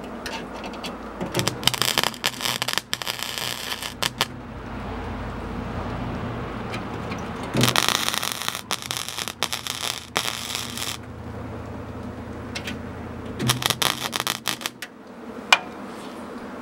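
MIG welder arc crackling in three bursts of a few seconds each, tacking shut small holes in sheet-steel door panel, with a steady low hum between bursts and a single sharp click near the end.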